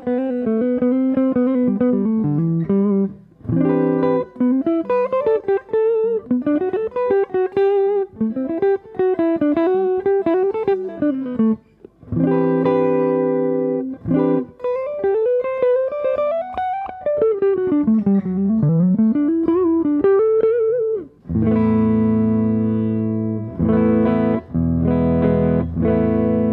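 Semi-hollow electric guitar with humbuckers played through a Fender Hot Rod Deluxe IV tube combo amp's clean channel, with all the EQ and presence turned down for a dark, jazzy tone. Single-note melodic lines, then ringing chords from about three quarters of the way in.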